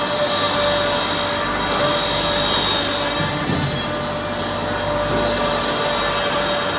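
Helix 80S wood shaving machine running steadily, cutting wood into bedding shavings: a constant machine hum with a hiss of shavings that swells and fades a few times.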